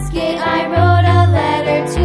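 Background music: a bright, upbeat children's-style tune with a melody over a steady bass line.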